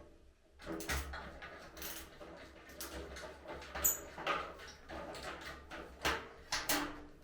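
Irregular clicks, knocks and light rattles of a hand tool and barbecue parts being handled during assembly, about half a dozen sharper knocks spread through.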